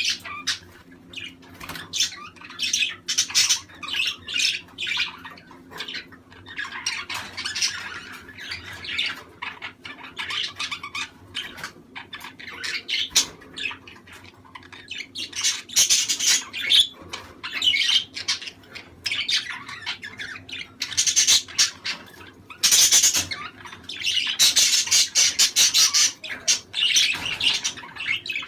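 Several budgerigars chattering, with dense overlapping chirps and squawks that grow louder in stretches during the second half.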